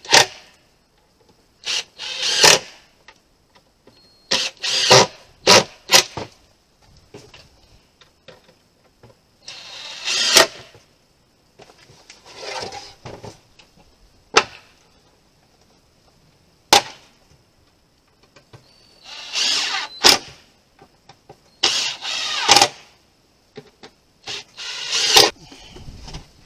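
Cordless drill driving screws into pine boards in short bursts of about a second each, repeated several times, with a few sharp knocks between.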